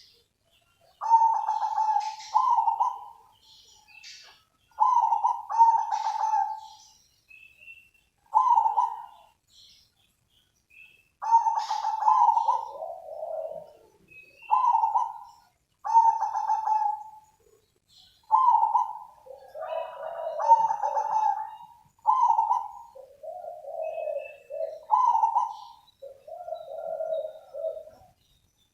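Zebra dove cooing: a series of phrases about every two seconds, each opening with a quick stutter of notes and ending in a rolling coo. The later phrases are lower-pitched. Faint high chirps sound between them.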